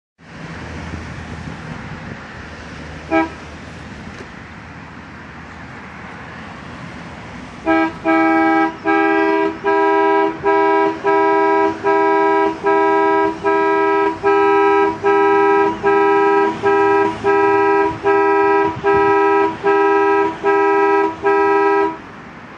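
Car alarm sounding through a pair of GAZ-21 horns instead of a siren. One short toot comes about three seconds in, as the alarm is armed. From about eight seconds a regular run of loud blasts follows, a bit more than one a second, each a chord of two pitches, and stops abruptly near the end: the alarm is triggered and then disarmed.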